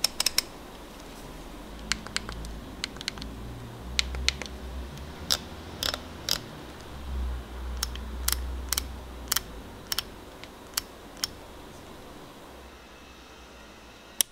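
Leica SL camera with a Voigtländer 35mm F2 Ultron lens being handled: about twenty sharp, irregularly spaced clicks of its controls, over low rubbing and handling noise, with the clicks stopping about eleven seconds in.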